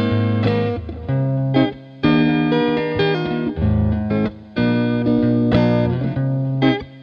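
Background music led by guitar, its chords changing about every second, with short dips in loudness between phrases.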